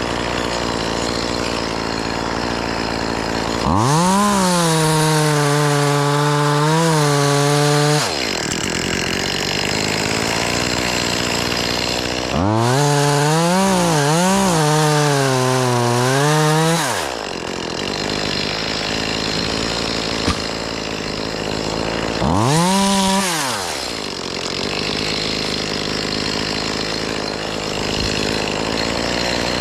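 Gas chainsaw revved up three times to cut limbs: two long cuts of about four seconds each and a short one near the end. Its pitch climbs quickly, wavers and dips as the chain bites, then falls back. A steady machine drone runs between the cuts.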